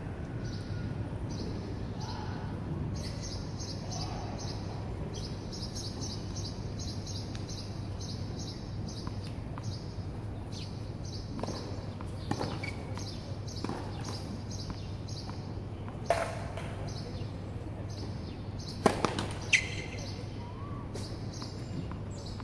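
Outdoor ambience of a steady low hum and rapid high chirping. Partway through come a few sharp knocks: a single one, then three close together. These are a tennis ball being bounced on the hard court before a serve.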